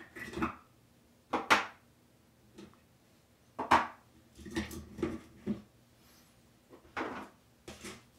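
Hard plastic clacks and knocks as Apple HomePod 2 tweeter modules are lifted out of their housing and set down on a table. About half a dozen separate knocks, the loudest about a second and a half in and near four seconds in.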